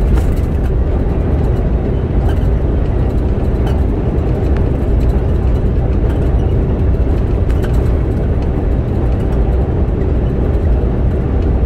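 Steady drone inside a semi-truck's cab cruising at highway speed: low engine rumble and road noise, unchanging throughout.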